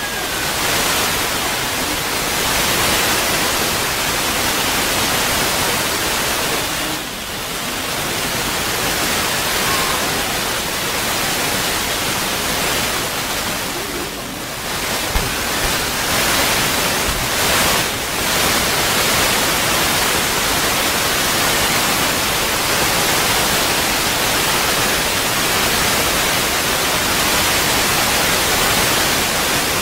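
Steady, loud hiss spread evenly across all pitches, dipping briefly about seven and fourteen seconds in, with no pitched call such as a howl standing out.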